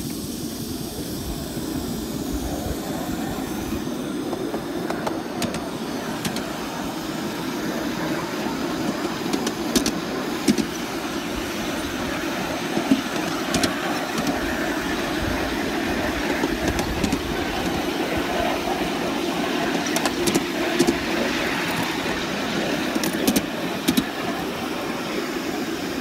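A 3½-inch gauge live-steam model of Penrhyn Quarry Railway 'Charles' running along a ride-on track, a steady rumble of the moving train with sharp clicks every few seconds.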